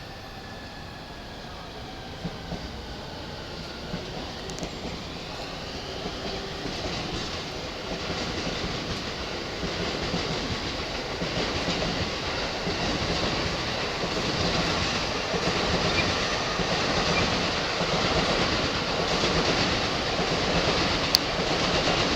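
Electric train running along the track, its wheels clattering over rail joints and growing steadily louder as it nears. A faint motor whine slides in pitch during the first seconds, and sharp clicks come near the end.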